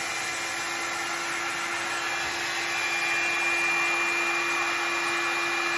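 Bed Head Blow Out Freak hot-air drying brush running on its low setting: a steady rush of blown air over a constant motor hum.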